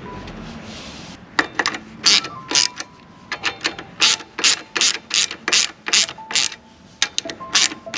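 Ratchet wrench clicking in short, irregular strokes as the brake caliper bolts are wound back in.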